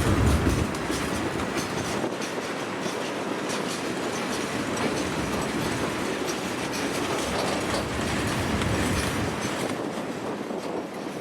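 Freight cars of a manifest train rolling past, their wheels clicking over the rail joints. A low rumble drops away within the first second.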